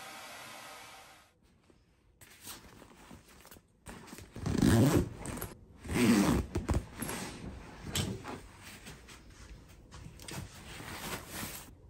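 A black nylon backpack being handled and opened: fabric rustling and a zipper being worked, in several loud bursts. A steady hiss cuts off about a second in.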